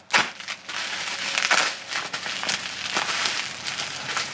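Plastic packaging crinkling and crackling in irregular bursts as it is handled and opened.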